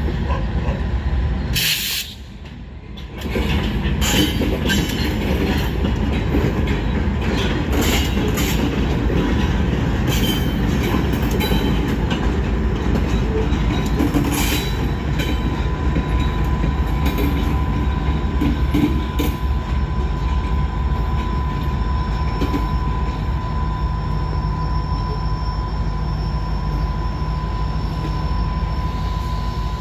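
A freight train rolls past with a steady wheel rumble and clicks and knocks from the wheels. The sound drops away briefly about two seconds in, and a thin steady wheel squeal joins from about ten seconds in.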